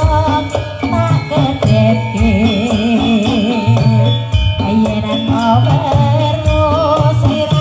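Music with a wavering sung or played melody over hand-drum percussion, played loudly through a stacked outdoor PA sound system with heavy bass.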